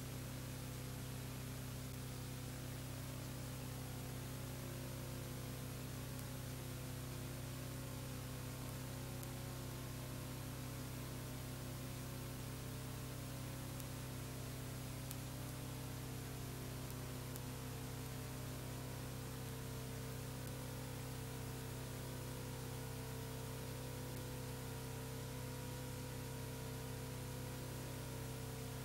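Steady hiss with a low, unchanging electrical hum and nothing else: the noise floor of an old analog video recording.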